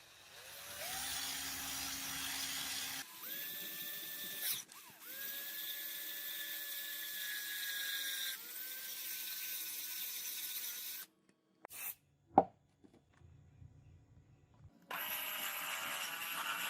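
Small electric power tool running in several short bursts with abrupt cuts between them, its motor pitch rising as it spins up, over a steady hiss. A single sharp knock comes about twelve seconds in.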